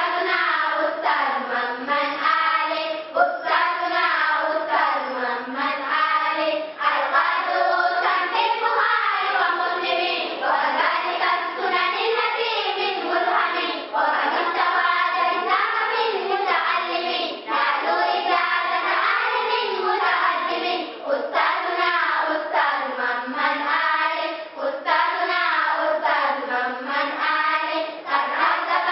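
A choir of schoolgirls singing an Islamic song together, continuously, with no instruments heard.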